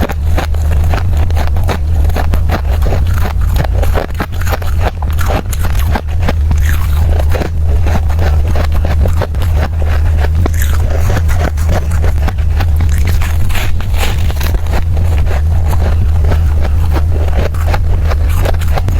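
Close-miked biting and chewing of squeaky ice: dense, irregular crunching and scraping crackles, with a steady low hum underneath.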